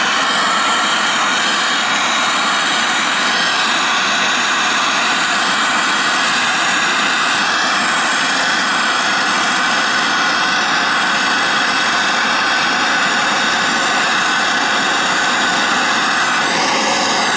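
Plumber's gas torch burning with a loud, steady roar as its flame heats a brass fitting on copper water pipe to sweat-solder the joint.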